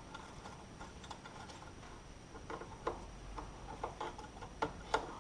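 Irregular small metallic clicks and clinks of hand tools against metal parts, sparse at first, then louder and more frequent from about halfway.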